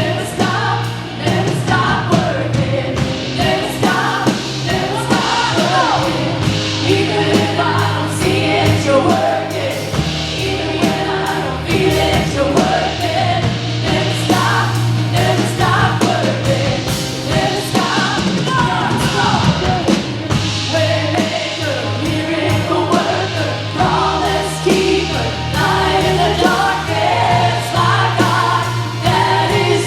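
Live worship band playing, with voices singing over sustained bass notes and drums.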